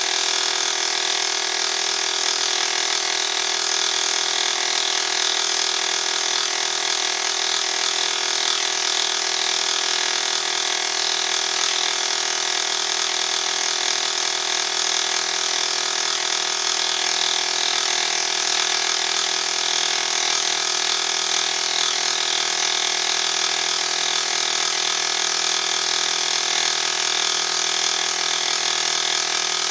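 Benchtop milling machine running steadily while a homemade dovetail cutter holder with a carbide insert takes a partial-depth cut along a cast iron cross slide. The sound is an even, continuous mix of several constant tones from the machine.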